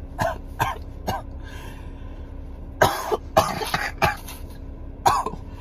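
A man coughing and snuffling into a tissue in a string of short, sharp bursts, the loudest about halfway through. His nose is irritated from a nasal swab test just taken.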